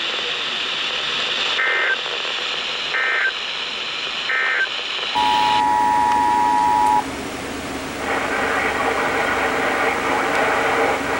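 Emergency Alert System broadcast tones: three short screeching SAME data bursts about a second and a half apart, the end-of-message signal. About five seconds in, the two-tone EAS attention signal sounds steadily for about two seconds, and then a steady radio hiss.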